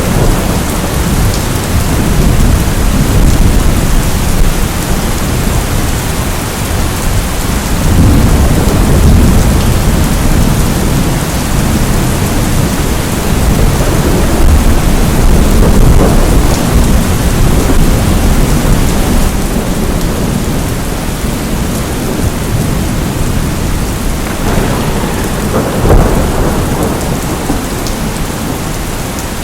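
Steady heavy rain with low rumbling thunder, the rumble swelling about a quarter of the way in and again near the end.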